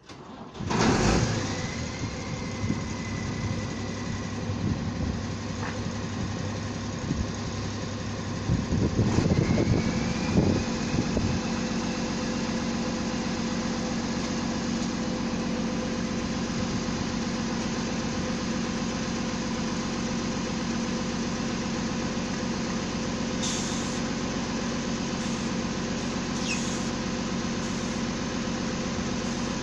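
Drilling rig's engine starting about a second in, then running. It runs louder and rougher with a few knocks around nine to eleven seconds, then settles to a steady run.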